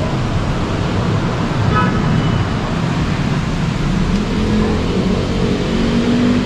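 Busy street traffic: a steady, loud rumble of vehicle engines, with one engine rising in pitch from about four seconds in.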